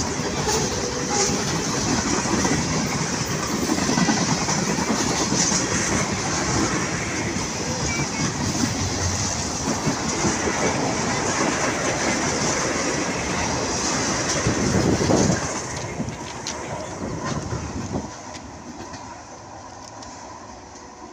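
Freight train rolling past close by: steady rumble and clatter of steel wheels on the rails. It drops away sharply about sixteen seconds in as the last car goes by, then fades as the train moves off down the line.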